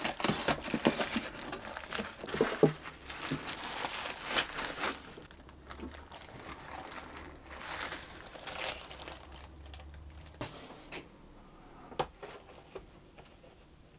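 Paper and plastic wrapping crinkling as it is pulled off a plaster mold, busiest in the first few seconds and then thinning out. A few light knocks follow near the end.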